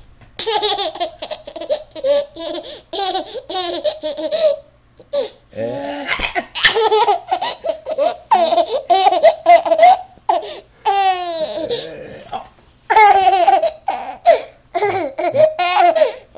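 Toddler laughing in repeated high-pitched fits, rapid breathy pulses and squeals, with short pauses between bouts to catch breath.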